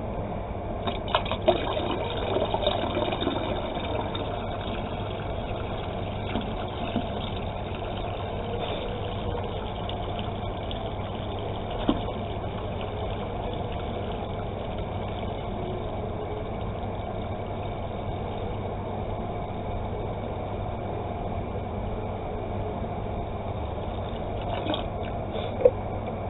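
Water pouring steadily into a bucket of homemade liquid laundry soap: the last five litres being added to finish the batch. A couple of small knocks are heard, one midway and one near the end.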